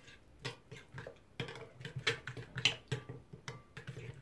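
Spoon stirring a thick yogurt-and-oil spice marinade in a glass bowl, clicking and scraping against the glass in irregular ticks a few times a second, with a soft wet stirring underneath.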